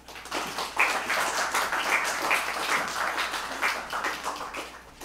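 Audience applauding: many people clapping, starting just after the start and dying away near the end.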